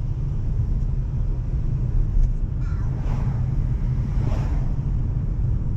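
Car driving, with a steady low rumble of road and engine noise, and two brief whooshes about halfway through and near the end.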